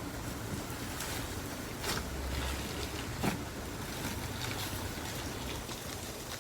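Slime mixed with paper clay being kneaded and stretched by hand: a steady soft wet rustle with a couple of sharp little pops.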